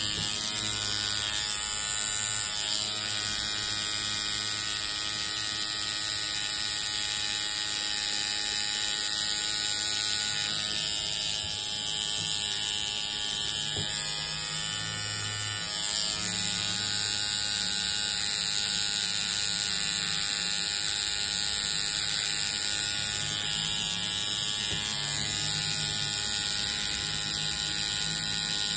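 Electric tattoo machine buzzing steadily as the needle lines a tattoo into skin.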